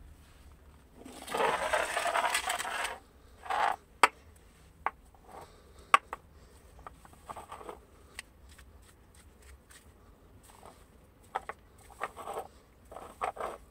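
A punctured, foam-covered shaving foam can being handled on a tiled floor. About a second in there is a loud rushing hiss lasting about two seconds. After it come scattered sharp clicks, scrapes and short rustling squelches as the can is stood upright and picked up out of the foam.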